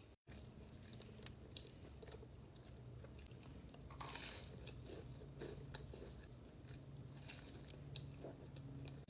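Close-miked eating sounds: a person chewing and biting, with small crunches and wet clicks. A faint steady low hum lies underneath.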